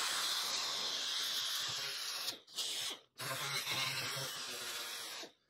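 Small pneumatic angle sander with an 80-grit Roloc disc stripping paint off the edge of a steel roof panel, running steadily with the disc on the metal. It cuts out briefly twice in the middle and stops just before the end.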